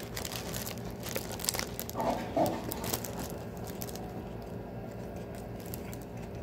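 Close-up mouth sounds of a man biting into and chewing a flour-tortilla burrito: wet smacks and clicks over the first three seconds, with a short hum about two seconds in, then quieter chewing.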